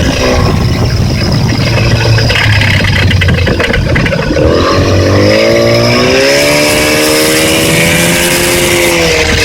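Yamaha 30 hp outboard motor running with a knock. Its speed drops at the start and it runs rough and low for a few seconds, then picks up about four seconds in and holds steady at a higher speed.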